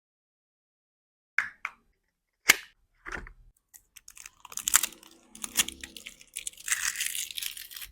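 Packaging of a vape pod kit being handled during unboxing: a few sharp clicks and taps, then several seconds of crinkling and rustling.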